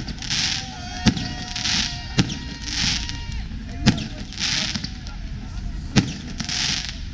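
Aerial fireworks going off: four sharp bangs one to two seconds apart, with a short hissing crackle between them.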